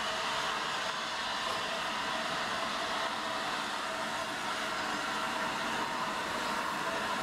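Steady hissing rush of noise from the Flying Scotsman, an LNER A3 Pacific steam locomotive, and its train coming into the station, with no separate exhaust beats.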